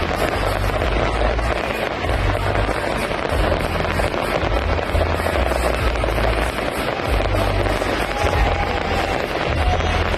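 Fireworks display going off without a break: deep booms run together under a dense, steady roar of noise.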